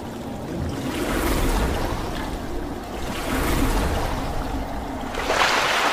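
Rushing, splashing water that swells and falls about three times, with the strongest surge near the end.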